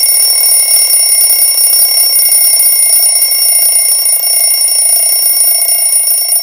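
An electric bell ringing loud and steady, with the fast rattle of its hammer under several high ringing tones, like a school class bell.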